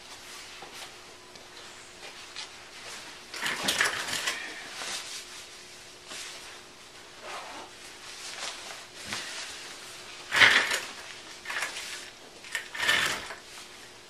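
A person moving about: clothes rustling and small knocks in a few short bursts, the loudest about ten and a half seconds in.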